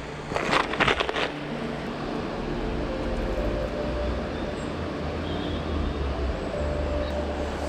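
Clicks and rattles of a clear plastic lure box in the first second or so. After that, a steady rushing of river water running over stones.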